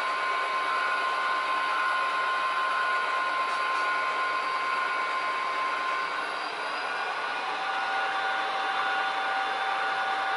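HO-scale EMD diesel locomotive models running on Soundtraxx Tsunami DCC sound decoders through small oval speakers, giving a steady engine rumble with a turbocharger-like whine and hiss. About six seconds in one whine tone stops, and a lower one starts a moment later, as the simulated prime movers change pitch.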